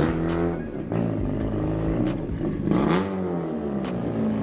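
Car engine revving: the pitch climbs and drops again several times, with the biggest rev about three seconds in.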